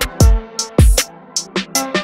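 Electronic background music with a steady beat: deep kick drums that drop in pitch, sharp snare and hi-hat hits between them, over held synth notes.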